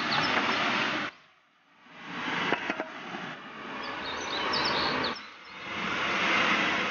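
Mountain stream and small waterfall running with a steady rush of water, with a few bird chirps over it. The sound drops out for about half a second about a second in.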